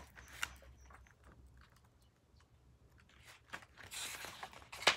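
Pages of a small paperback guidebook being flipped by hand: a few soft taps, then a papery rustle with sharp ticks in the last second and a half.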